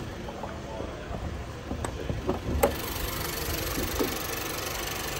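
Car hood being unlatched and raised: a few clicks and a sharp clack about two and a half seconds in, and a lighter knock near four seconds, over a steady low hum.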